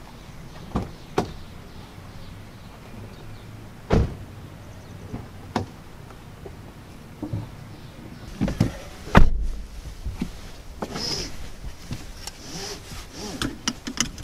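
Car doors being opened and shut as people get into a parked car: latch clicks, a knock about four seconds in, and a loud door slam just after nine seconds. Then a run of small clicks and rustling as a seatbelt is pulled across.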